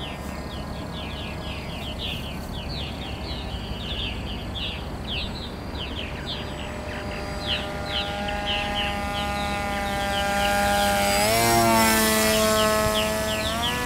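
A radio-controlled flying wing's motor and propeller hum steadily, growing louder as it passes close by about eleven seconds in, where its pitch bends briefly. Birds chirp throughout.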